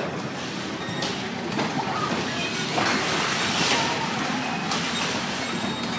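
Bumper cars running across the ride floor: a steady rumbling noise with a few light knocks and a louder stretch about three to four seconds in.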